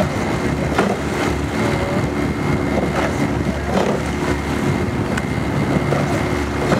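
Outboard motor of a coaching launch running steadily at cruising speed.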